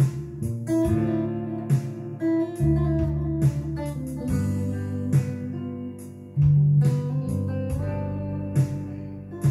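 Electric guitar playing a slow, sustained melody over synth drums keeping a steady beat, with low held notes underneath.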